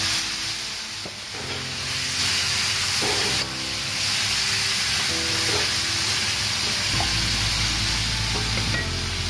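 Chicken pieces with ginger and garlic sizzling steadily in hot oil in a wok as they are stirred and turned.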